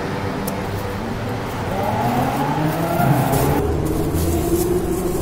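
A motor vehicle's engine revving past, its pitch rising from about two seconds in and then settling to a steady hum, over constant traffic noise.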